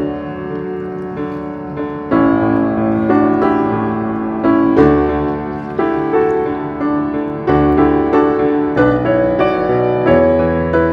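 Background piano music: a gentle melody over held chords, with notes struck at a steady, unhurried pace.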